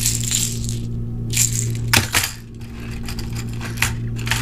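Hard plastic lipless crankbaits clattering in the hand and against a clear plastic tackle tray as they are set back into a compartment, their treble hooks and rattles clicking irregularly. There is a sharp click about two seconds in and a run of light ticks near the end, over a steady low hum.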